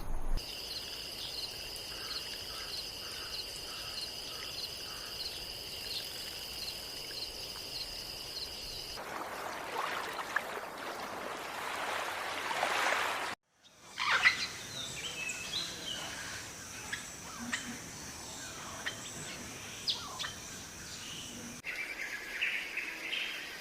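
Several short outdoor nature recordings cut together. First a steady high-pitched buzz with a faint regular ticking, then a hiss that swells for a few seconds and cuts off, then scattered short bird chirps over background noise.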